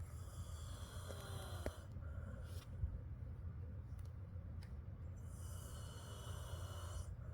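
A sleeping pet snoring: two long, hissing snore breaths with a thin whistle, about five seconds apart.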